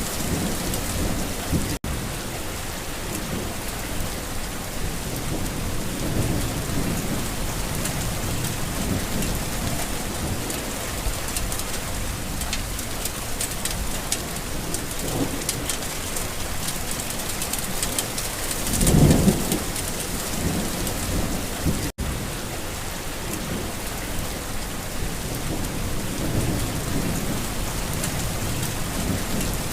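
Steady rain falling on a garden, with rolling rumbles of thunder that swell several times; the loudest rumble comes about two-thirds of the way through. The sound cuts out for an instant twice.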